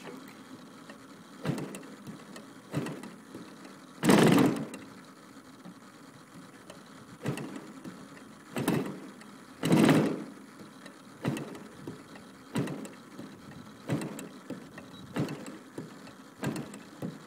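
DLE 55 single-cylinder two-stroke gas engine being cranked over in short strokes, about one every second and a half, failing to catch. It gives two louder, longer pops about four and ten seconds in.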